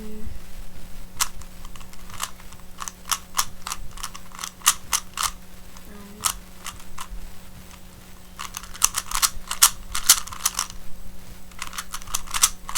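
Plastic Rubik's speedcube being turned by hand: irregular clicks and clacks of its layers, with a quick run of turns about nine seconds in. The layers get caught now and then as they turn.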